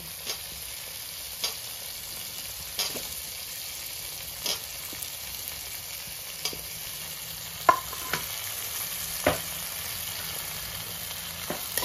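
Potato wedges frying in hot oil with tomatoes and spices in a metal wok: a steady sizzle broken by about eight sharp metal clinks as pieces go into the pan and the steel spatula knocks against it, the loudest about three-quarters of the way through.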